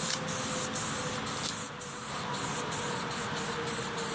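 Aerosol spray can hissing steadily as a coat of primer is sprayed on, the hiss dipping briefly many times, with wind rumbling on the microphone underneath.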